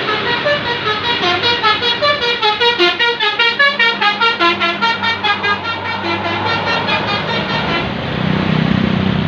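Tour bus basuri horn, a bank of electrically switched air horns, playing a quick 'telolet' tune of short notes at changing pitches, about four a second, for about seven seconds. Then the bus's engine runs louder as it climbs past.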